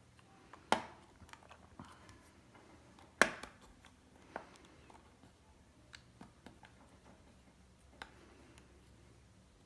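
Light clicks and taps of hands working on a metal faucet body while rubber washers are pressed down over the springs in the cartridge seats, with two sharp knocks, about a second in and about three seconds in.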